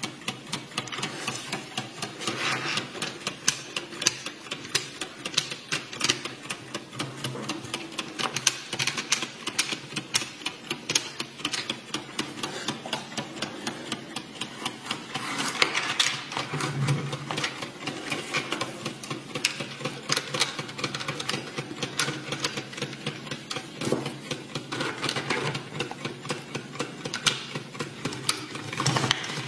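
3D-printed plastic tourbillon clock running, its escapement ticking in a quick, even run of sharp plastic clicks.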